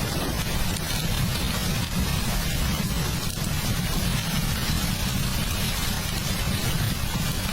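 Steady heavy rain with a constant deep rumble underneath, holding an even level throughout.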